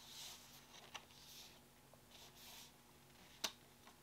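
Faint rustling of disc packaging being handled, with a small click about a second in and a sharper click near the end.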